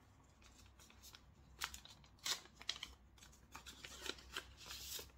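Faint rustling and crinkling of a small mailing packet being opened by hand, in short irregular bursts with a denser stretch near the end.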